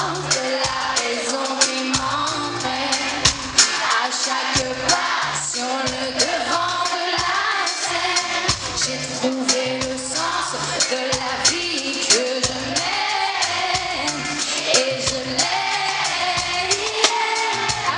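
Live pop music: a woman singing lead into a microphone over a band with drums.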